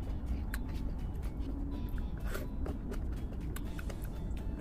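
Gloved hand sifting through thick sauce and shellfish on a tray: soft wet squelches with scattered clicks and taps, over a steady low hum.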